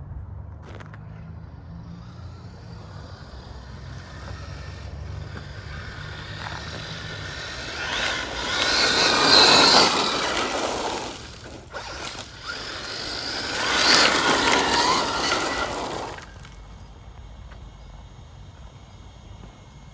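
FTX Zorro brushless RC car making two fast passes, its motor and gear whine swelling and fading each time: once about eight seconds in, and again about thirteen seconds in.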